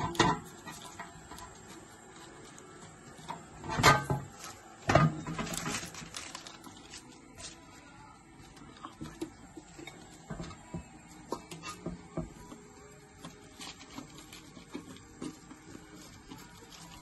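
Light taps and rustles of parchment paper as cucumber slices are set down one by one on a baking tray, with two louder knocks about four and five seconds in.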